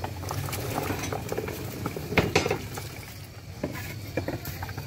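Diced yuca, potato and ñame tipped from a plastic bowl into a large metal pot of boiling broth: a run of splashes and plops, loudest about two seconds in, over the bubbling of the broth.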